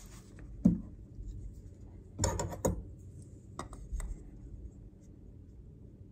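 Hand-handling noises: a wooden block being unwrapped from a cloth and a small metal square set against it, making a few soft rustles and knocks with a couple of sharp clicks around the middle.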